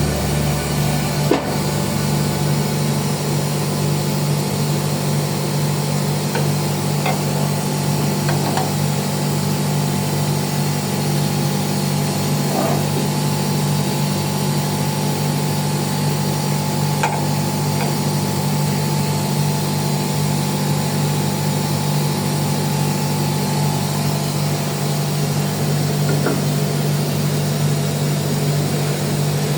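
Steady low machine hum, with a few scattered clinks and knocks of hand tools on metal.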